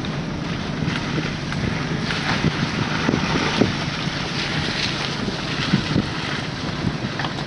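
Wind buffeting the microphone: a steady low rumble with scattered small knocks and rustles.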